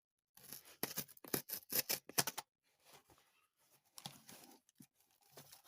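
A shipping package being cut and ripped open: a quick run of about a dozen sharp cutting or ripping strokes, then quieter scraping and rustling of the packaging.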